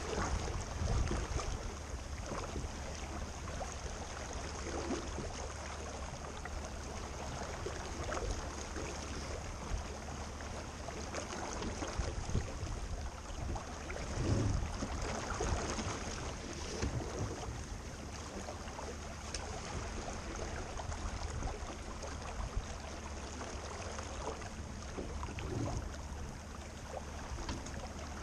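Wind and water rushing past a small boat under way: a steady noise with a low rumble, and a few brief louder swells.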